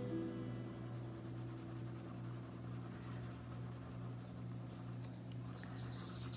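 Colored pencil rubbing lightly back and forth on paper in shading strokes, over a steady low hum.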